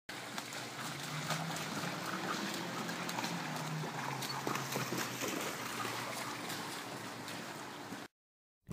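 Backyard sound from a camera microphone: a steady low hum under a hiss, with many small wet clicks and splashes as a Great Pyrenees puppy moves about on a wet pool safety cover. It cuts off abruptly near the end.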